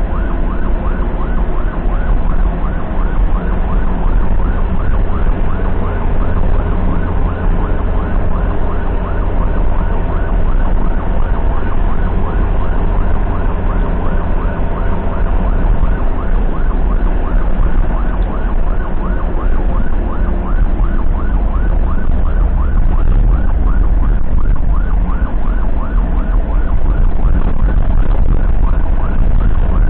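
Ambulance siren sounding a fast, evenly repeating wail, over the steady low rumble of the ambulance's engine and tyres on the road.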